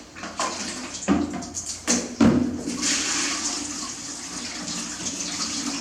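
A couple of short knocks, then from about three seconds in a steady rush of running bath water.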